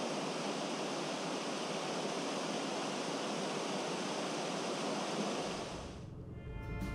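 Water gushing through the open paddles of a canal lock's upper gates into the chamber as the lock fills beneath a narrowboat: a steady rushing that fades out about six seconds in.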